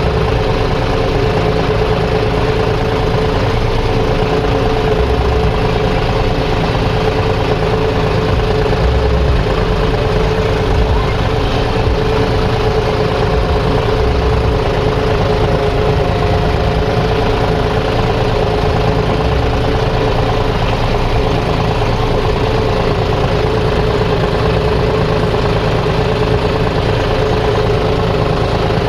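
An engine running steadily at an even speed, with a strong, unchanging hum.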